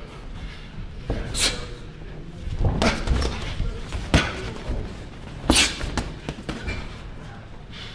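Boxing gloves smacking as punches land and are blocked in sparring: a string of sharp hits, the loudest about four seconds in and again about five and a half seconds in.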